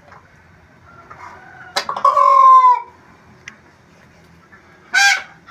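Two loud calls from fowl: a call about a second long starting nearly two seconds in, dropping in pitch at its end, then a short call near the end.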